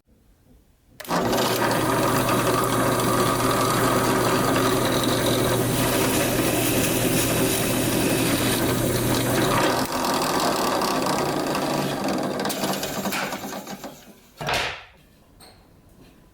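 Electric power tool running on plywood for about twelve seconds, its sound changing about nine seconds in before it winds down. A brief second burst follows near the end.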